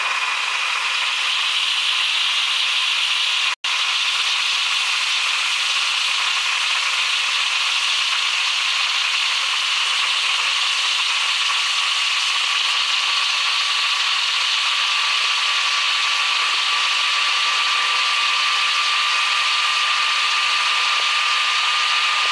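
Steady airliner jet noise, heard as a hiss without rumble, with a thin whine that slowly rises a little in pitch. It drops out for an instant about three and a half seconds in.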